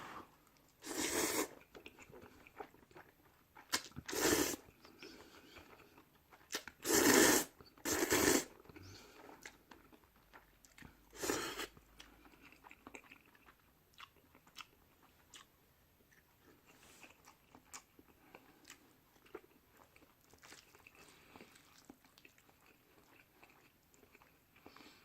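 A person eating stir-fried instant noodles close to the microphone: five loud slurps of noodles in the first half, then steady soft chewing with small wet clicks.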